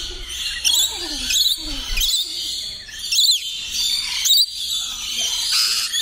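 A flock of rainbow lorikeets chattering, with sharp, high screeches about every second over a steady shrill background chatter.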